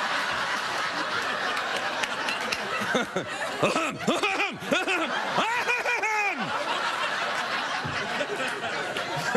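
Studio audience laughing, with one voice laughing out in short repeated bursts about three seconds in that die away after about three seconds more.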